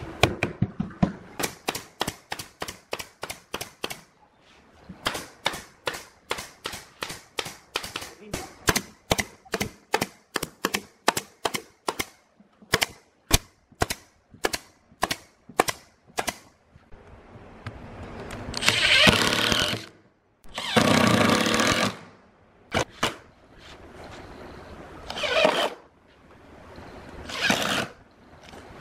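Pneumatic nail gun firing rapid shots into a plywood speaker cabinet, about four a second at first, then slower single shots. Near the end come several longer bursts of a power tool running, each a second or two long.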